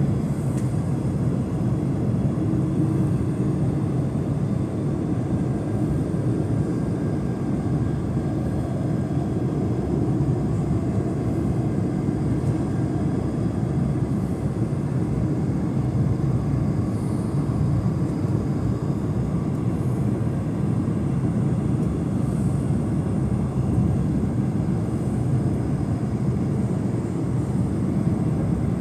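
Steady cabin noise of an Airbus A220 in flight, heard from a window seat over the wing: a low, even rushing drone from its Pratt & Whitney PW1500G geared turbofans and the airflow past the fuselage.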